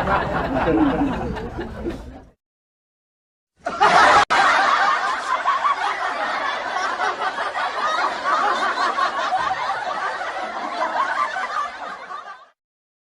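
Two laughter sound effects in a row. The first fades out about two seconds in. After a second of silence a longer stretch of laughter starts, cuts out for an instant just after it begins, then runs on and fades out near the end.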